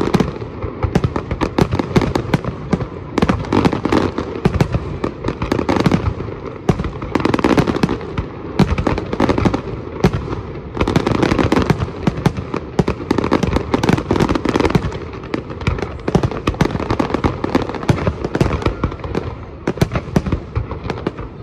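Fireworks display in a dense barrage: aerial shells bursting one after another in rapid, overlapping bangs with no pause.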